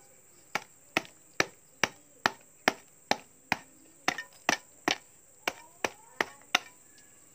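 Sharp knocks on a cast cement stove part, about two a second and some fifteen in all, slightly uneven in the middle, stopping about a second before the end.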